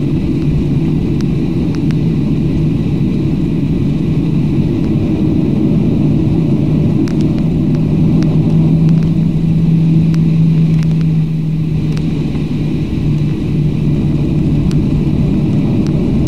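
Cabin noise inside a Boeing 737 taxiing: a steady low rumble of the engines at taxi power and the aircraft rolling, with a low hum that swells slightly about halfway through and a few faint ticks.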